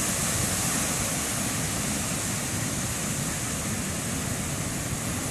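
Ocean surf: small waves breaking and washing up the sand at the water's edge, a steady rushing roar.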